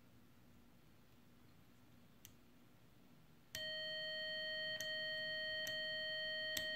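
VIC-3 Lite intercom crew station sounding a steady electronic error tone, starting suddenly about three and a half seconds in after near silence, with a faint tick about once a second. It is the error signal for keying a position with no radio connected.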